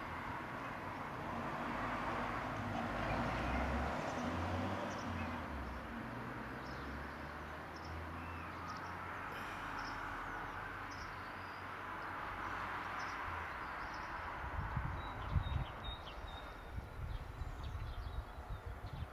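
Steady outdoor background hiss and low rumble, with short high bird chirps now and then in the second half and low bumps on the microphone near the end.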